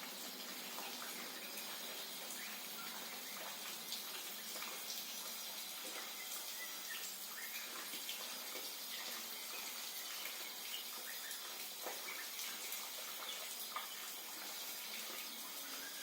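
Steady rain falling, an even hiss with scattered drips and ticks, with a few faint short bird chirps over it.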